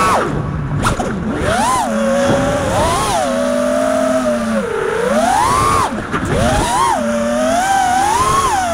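Brushless motors and propellers of a 5-inch FPV freestyle quadcopter, whining and rising and falling in pitch with the throttle. The whine drops away briefly where the throttle is cut, about half a second in and again near six seconds in.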